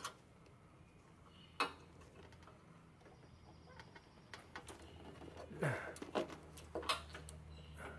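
Scattered light clicks and taps as a Honda lawnmower carburetor and its linkage are handled and fitted onto the engine's intake studs. There is one sharper click about a second and a half in, and a cluster of clicks in the second half.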